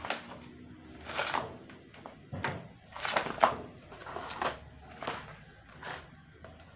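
Plastic trays being handled and set down on a wooden workbench: a string of short, irregular knocks and scrapes, the loudest about three and a half seconds in.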